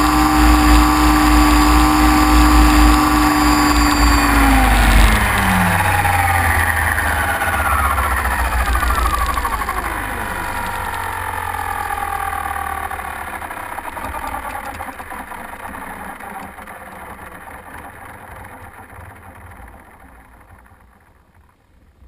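Small electric drone motors whining steadily with propeller wash, then dropping sharply in pitch about five seconds in as the drone sets down in grass. Several falling tones wind down and the sound fades out to silence near the end.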